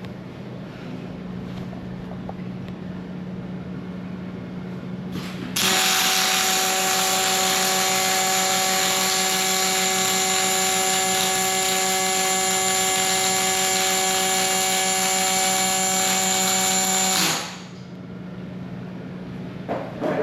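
Robot-driven MIG welding arc: a loud, even hiss with a constant hum running through it, which starts abruptly about five and a half seconds in and cuts off sharply about seventeen seconds in. A low steady machine hum sounds before and after the weld.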